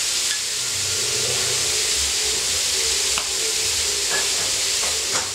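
Chicken pieces and diced pineapple sizzling steadily on a hot electric grill pan, with a couple of light clicks, one about three seconds in and one near the end.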